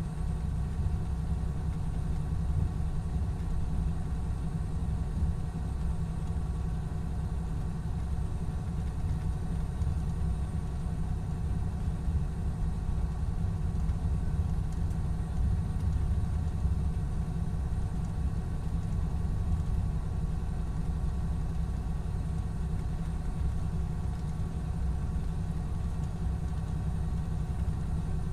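Cummins ISX12 inline-six diesel of an MCI D4500CT coach running steadily at a constant pitch, with no revving or braking.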